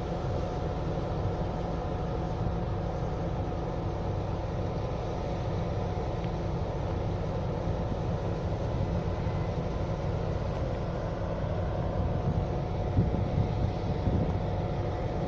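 MÁV M62 diesel locomotive's two-stroke V12 engine idling with a steady drone and a held whine. Wind buffets the microphone a few times near the end.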